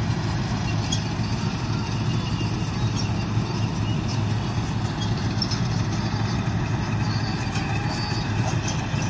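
Heavy road vehicle running at a steady pace: a constant low engine drone with continuous road noise.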